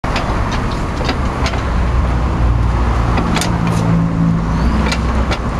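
Street traffic: a motor vehicle's engine running close by, with a steady low rumble that grows a little stronger around the middle. Several short sharp clicks and knocks are scattered through it.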